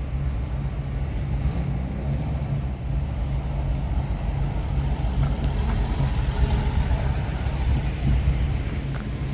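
Road vehicles running and passing, a steady low engine and traffic rumble with a slight rise in engine pitch about two seconds in.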